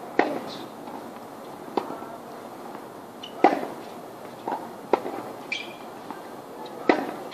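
Tennis ball being hit with a racket and bouncing on a hard court during a hitting session: a string of sharp pops about every second or so, some louder than others.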